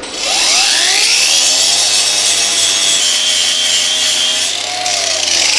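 Angle grinder spinning up, then grinding a flux-core weld down flush on thin 22 gauge sheet steel, a steady high whine with a grinding rasp. Its pitch sags briefly near the end as the disc bears down on the metal.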